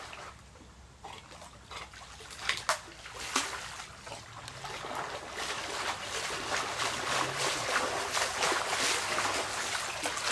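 Pool water splashing and sloshing as a man and a Labrador swim through it. A few separate splashes in the first few seconds, then continuous splashing that grows louder toward the end as the swimmers come closer.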